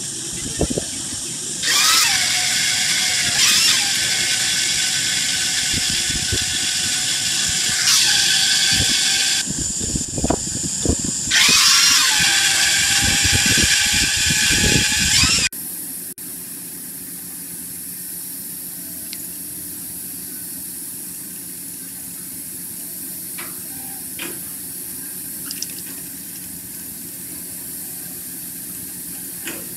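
Shrill squealing whine of a tool working a screw air-compressor rotor as it spins in a lathe. It starts and cuts out a few times and breaks off abruptly about halfway through. A much quieter steady machine hum with a few faint ticks follows.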